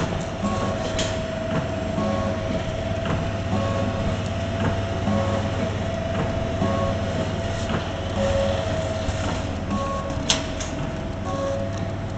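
DXD50Y automatic liquid filling and packing machine running: a steady hum with short tones and light ticks repeating about once a second as it cycles, and one sharp click about ten seconds in.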